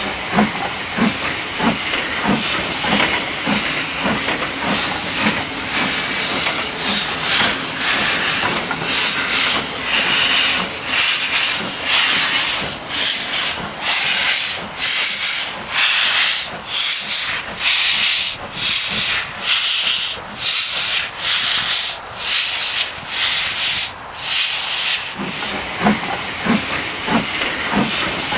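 Small industrial tank steam locomotive working a slow shunt: regular exhaust chuffs, a little faster than one a second, over a constant hiss of steam.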